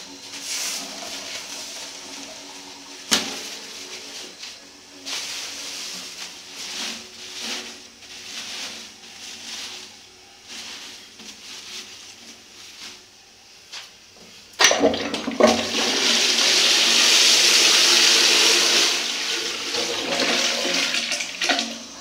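1980s Royal Doulton Ashton toilet flushing a bowl heaped with toilet paper. A sudden onset about fifteen seconds in turns into a loud rush of water that eases off over about seven seconds and stops abruptly. Before it come softer, uneven handling noises with one sharp knock about three seconds in.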